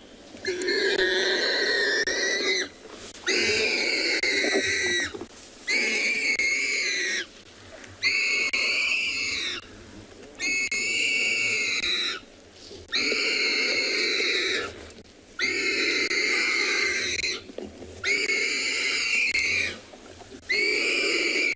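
A warthog squealing in distress as lions feed on it alive: long, high-pitched squeals of about two seconds each, one after another with short breaks between.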